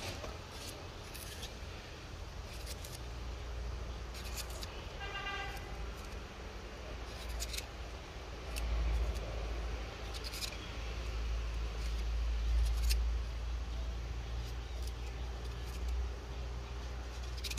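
Chef's knife slicing a raw carrot held in the hand, giving irregular sharp clicks as the blade cuts through, over a steady low rumble.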